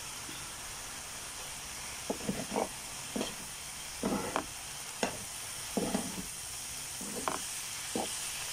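Cabbage and carrots sizzling in a frying pan with a steady hiss, while a slotted turner and a wooden spatula toss them. From about two seconds in, the utensils scrape and tap against the pan in about ten short strokes.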